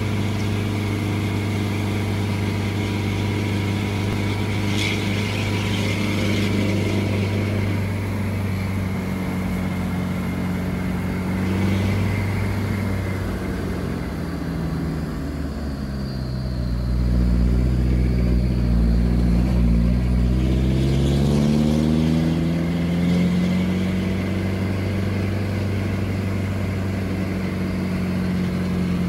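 Truck engine running, heard from inside the cab. Its pitch dips about halfway through, then climbs over several seconds and holds steady.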